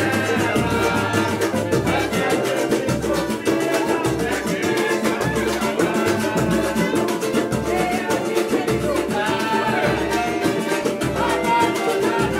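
Live samba played and sung by a group: several voices singing together over hand-drum percussion, with a steady low drum beat.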